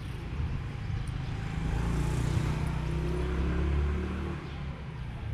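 Motor scooter riding past, its engine rumble swelling as it comes close and dropping away again after about four seconds.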